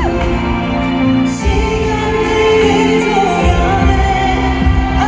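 Pop song performed live by a male vocal group: a sung melody over a backing track with a steady bass beat, heard from the concert audience.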